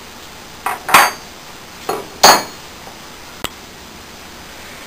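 Steel hand tools and rod being handled at a bench vise: a few sharp metallic clanks, the loudest two about a second apart with a brief ring after the second, then a faint click.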